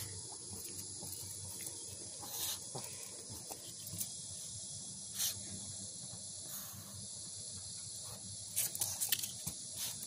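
Steady high-pitched buzz of a cicada chorus, with a few short sniffs from a chihuahua nosing at a cicada shell, several in quick succession near the end.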